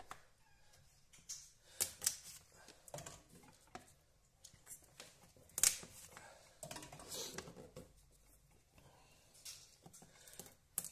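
Kitchen knife cutting into raw chestnut shells on a wooden cutting board: irregular sharp clicks and short scrapes as the blade bites the hard shell and taps the board. The chestnuts are being scored so the shell will come away during cooking.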